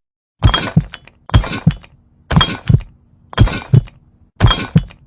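A heartbeat rhythm made of breaking-glass crashes: five lub-dub pairs of sharp, ringing smashes, about one pair a second, with silence between the beats.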